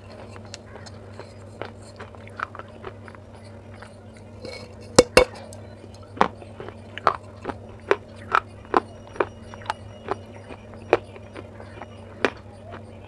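Baked clay pot pieces bitten and chewed. Two sharp cracks about five seconds in as a piece snaps off, then steady crunching about twice a second as the clay is chewed.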